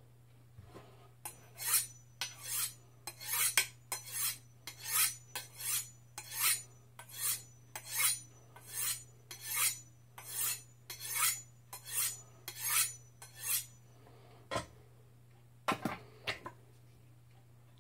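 Zwilling kitchen knife being honed on a honing steel: a long run of even, high-pitched scraping strokes of the blade along the steel, a little over one a second, for about twelve seconds. A few light knocks follow near the end.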